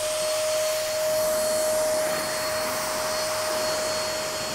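BigBoi BlowR Buddie electric car-drying blower running steadily at full speed: a single steady whine over a rush of air as it blows water off the wet paint.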